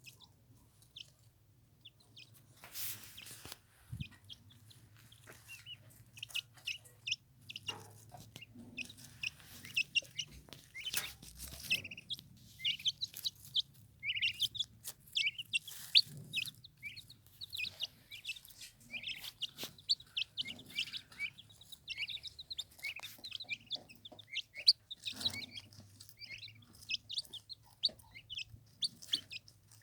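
Turkey poults peeping continuously in short, high chirps, several a second, with scattered sharp clicks and knocks.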